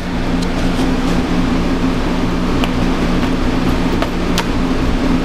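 Steady mechanical hum with a rushing noise under it, like a room fan or air conditioner running, with a few faint light clicks.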